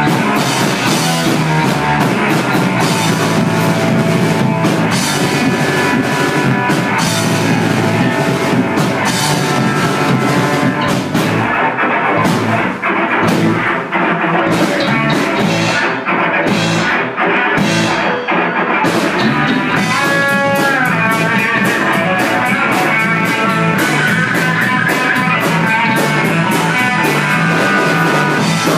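Instrumental rock music with guitar and a drum kit playing a steady beat, without vocals. About twenty seconds in, one note bends up and down.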